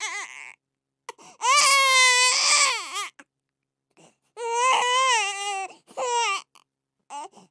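A baby crying hard: two long, high wails of over a second each, whose pitch rises then falls slightly, with shorter sobs around them, broken by silent gaps for breath.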